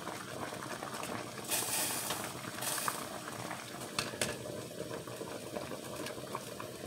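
Water boiling steadily under a metal colander of steaming wrapped kenkey, a bubbling hiss that swells briefly twice in the first half. About four seconds in, the glass pot lid clinks twice as it is set back on.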